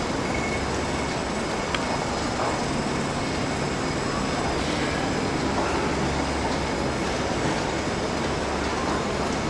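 Steady rumble and whine of jet airliner engines, muffled by the terminal window glass.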